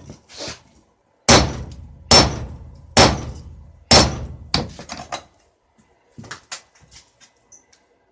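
Blacksmith's hammer striking an anvil: four heavy blows about once a second, each with a short metallic ring, then a few lighter taps.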